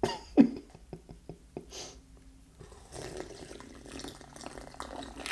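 A man sipping Diet Dr Pepper, a carbonated soda, from a small glass and swallowing it. A sharp slurp comes right at the start and another about half a second in, followed by small wet mouth clicks and softer swallowing sounds.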